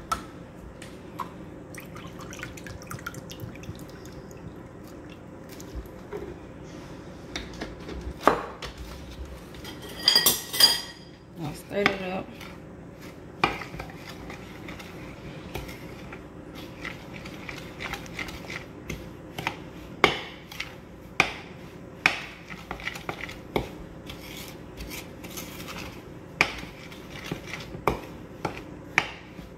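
Kitchen dishes and utensils clinking, tapping and knocking at irregular intervals over a faint steady hum, with a brief ringing clink about ten seconds in that is the loudest moment.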